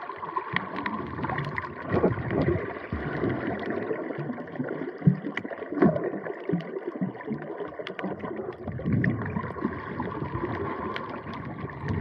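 Water sloshing and gurgling close against the camera's microphone, in irregular surges, over a faint steady hum.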